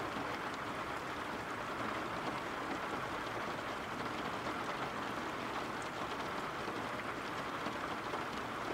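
Steady rain falling: an even hiss with faint, scattered drop ticks.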